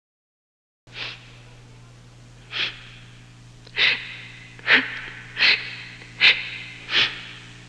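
A girl crying, sobbing in ragged, breathy gasps. It starts about a second in, after silence; about seven sobs follow, coming closer together, over a steady low hum.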